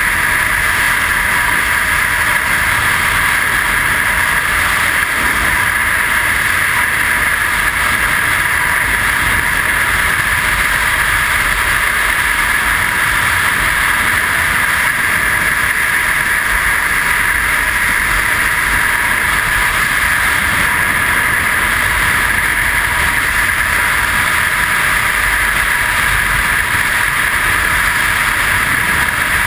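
Steady rush of freefall wind over the camera's microphone during a skydive: an even noise that holds at one level throughout.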